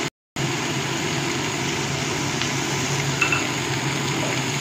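Steady fan-like whir with a low hum underneath, with a faint light clink a little after three seconds in.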